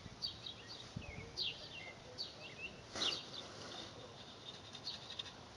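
Small birds chirping: many short calls that drop in pitch. A faint knock comes about a second in and a brief scrape near the middle.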